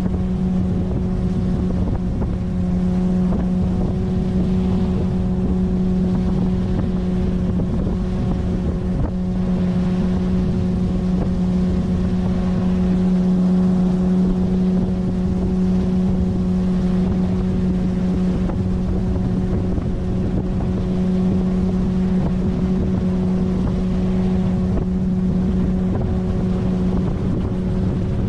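A 9.8 hp outboard motor pushing an inflatable boat along, running steadily at an even cruising speed with a constant engine note.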